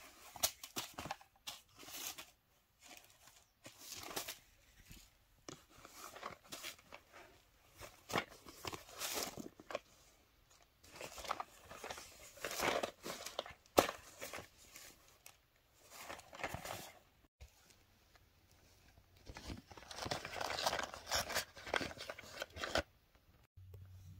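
Paper packaging rustling and crinkling as it is handled and unwrapped, in irregular bursts of varying loudness.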